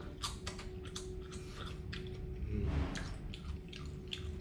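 A person chewing crunchy fried mealworms, close to the microphone: a run of short crisp crunches, about two or three a second.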